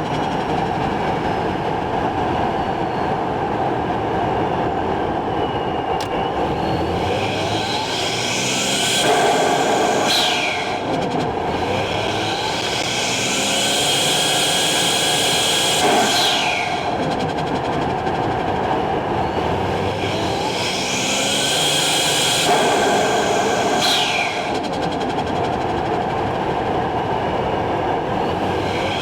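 Toyota Chaser's 1JZ-GTE turbocharged inline-six running and revved up three times. Each time the throttle is released, a falling turbo whistle and the turbo flutter and blow-off follow.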